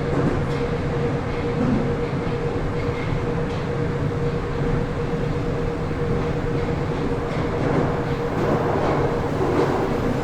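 Moscow Metro train running at speed, heard inside the carriage: a steady rumble of wheels and running gear with a constant whine, and a few faint clicks from the wheels on the rails.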